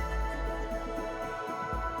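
Instrumental background music: held, layered tones over a recurring low pulse.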